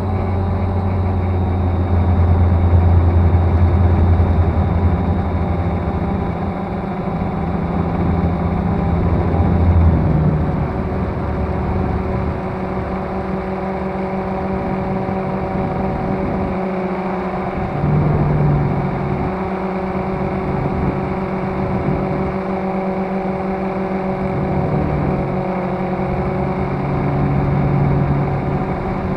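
Cheerson CX-20 quadcopter's electric motors and propellers humming steadily, heard up close from the camera mounted on the drone. The pitch of the hum shifts a few times, about a third of the way in, past the middle, and again near the end.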